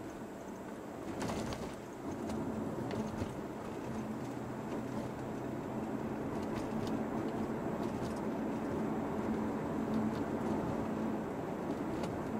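Steady road and engine noise inside a moving car's cabin, a low hum with tyre rumble under it, swelling slightly later on.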